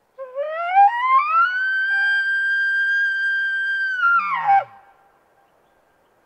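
Bull elk bugle blown by a hunter on a bugle tube: a high call that rises steadily for about a second and a half, holds steady for about two and a half seconds, then drops away into a short deep grunt at the end.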